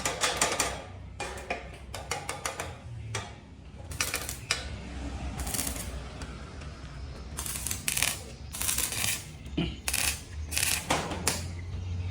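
Metal clicking and clanking in irregular quick clusters of sharp knocks, with short pauses between them.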